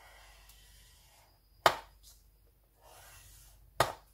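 Bone folder drawn along the groove of a paper scoring board, scoring a fold line into scrapbook paper: two soft rubbing strokes. Two sharp clicks sound over them, one about a second and a half in and one near the end.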